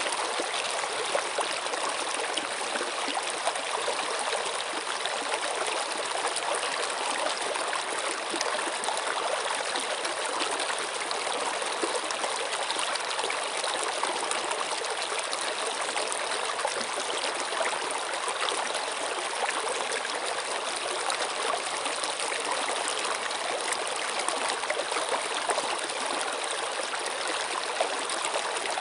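Running water flowing steadily, an even, continuous rush with fine splashing and no change in level.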